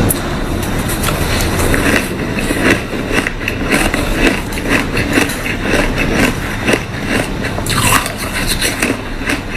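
Close-miked crunching of ice being bitten and chewed: a dense, irregular run of sharp crunches and crackles.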